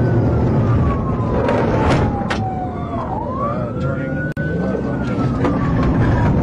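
Police siren on its wail setting, its tone slowly falling, rising again about three seconds in and falling once more, over a steady low rumble with a few sharp clicks.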